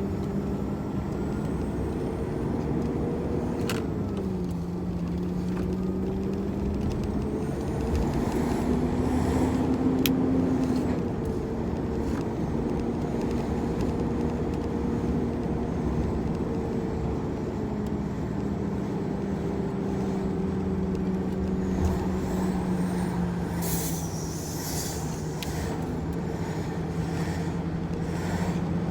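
Large tractor-trailer's diesel engine running under way, its pitch dropping and climbing again as the 16-speed manual gearbox is shifted. There are a few sharp clicks, and a short burst of air hiss about 24 seconds in.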